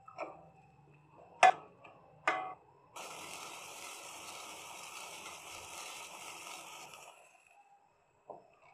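A spoon knocking against a steel cooking pot three times while stirring. Then the gravy boiling in the pot: a steady bubbling hiss for about four seconds that fades out, and a light tap near the end.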